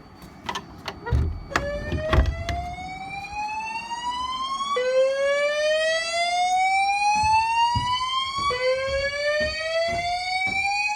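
Fire alarm voice-evacuation speakers sounding the slow whoop evacuation tone: a rising sweep about three and a half seconds long, repeated three times, starting about a second and a half in, over a steady high-pitched tone. A few sharp knocks come before the first sweep.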